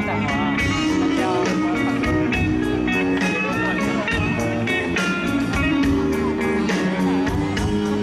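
Live band playing an instrumental passage: a lead guitar bends and wavers in pitch over steady drum strokes and held chords.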